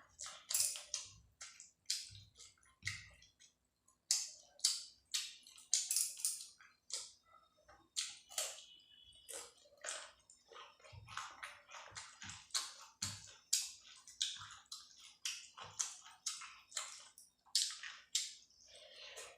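Close-up wet chewing and mouth clicks of a person eating curry and rice, a few irregular smacks a second.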